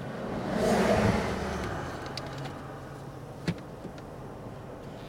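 A car passing by, rising to a peak about a second in and then fading away. A single sharp click comes about three and a half seconds in.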